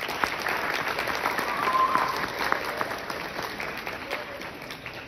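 Audience applauding, building to a peak about two seconds in and dying away toward the end.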